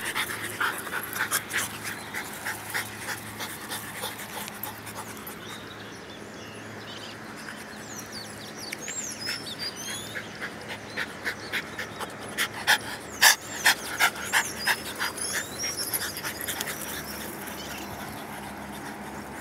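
French bulldog panting in quick, rhythmic breaths, about two to three a second, fading for a few seconds and coming back louder in the middle.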